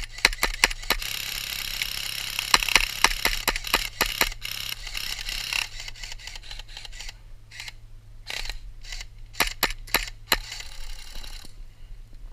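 Airsoft rifle firing in quick strings of sharp shots, several a second, over about the first five seconds and again from about seven to ten and a half seconds in, with a rustling hiss under the early shots.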